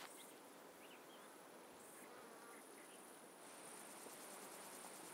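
Faint, high, steady insect chirring in a mountain meadow, growing plainer about three and a half seconds in, with a few small faint chirps earlier on.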